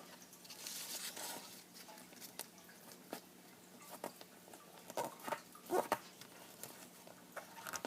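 Origami paper being handled and creased by hand: soft rustling with a scatter of short, sharp crinkles.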